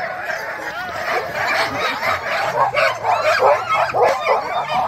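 A team of harnessed sled huskies yelping and howling together in a loud, overlapping chorus, the excited clamour of sled dogs waiting to run.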